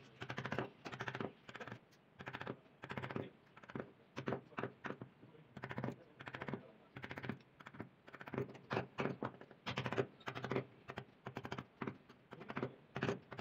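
Wooden mallet tapping a carving chisel into hardwood: a steady run of sharp taps, about two to three a second, as the chisel cuts small details into a carved panel.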